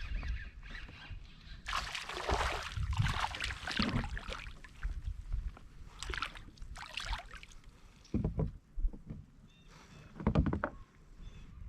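Water splashing and sloshing around a kayak in uneven bursts, with a few dull knocks on the hull near the end.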